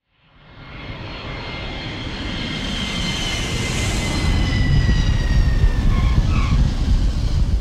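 Jet airplane flyby sound effect: a rumbling roar that swells steadily from nothing, with a high engine whine that slowly falls in pitch as it passes.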